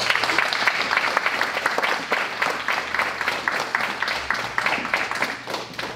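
Audience applauding: many hands clapping, starting suddenly and thinning out near the end.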